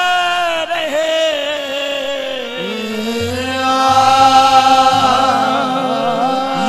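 Qawwali performance: male voices sing long, bending notes over harmonium accompaniment.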